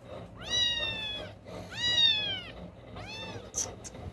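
Newborn kitten crying with three high-pitched meows, each rising then falling, the third shorter. It is the cry of a blind young kitten searching for its mother's milk. Two brief clicks follow near the end.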